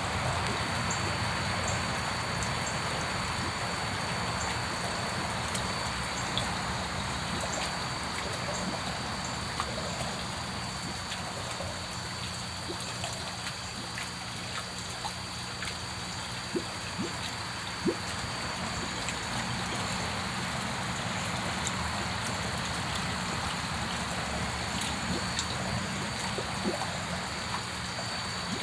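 Water trickling steadily, with a thin steady high whine and low hum underneath and scattered small clicks and plops.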